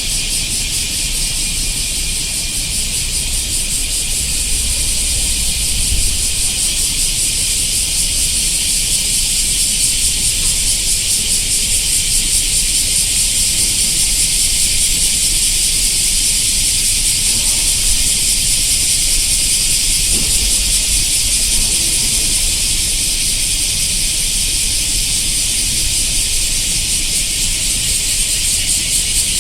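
Cicadas calling in chorus: a loud, continuous high-pitched buzzing drone with a fine rapid pulse, holding steady throughout.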